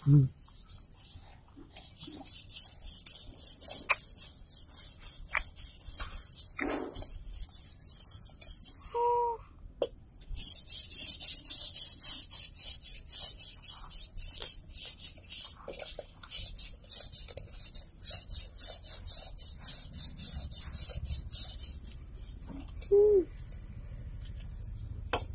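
Rapid scratchy rubbing and scraping right on a phone's microphone as a toddler's hands and face handle the phone, stopping briefly twice. Short child's vocal sounds come about nine seconds in and again near the end.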